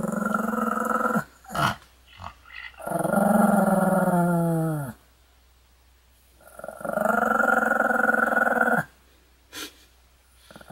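A Pomeranian growling in three drawn-out pitched grumbles of about two seconds each, the middle one dropping in pitch as it ends, with a few short yips between them.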